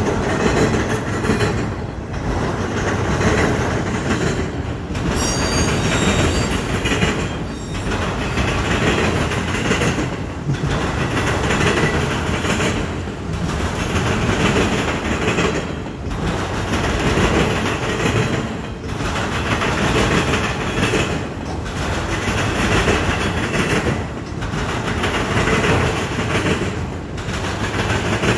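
Freight train of autorack cars rolling past close by: a steady rumble and clatter of steel wheels on the rails that swells and dips about every three seconds as each car goes by.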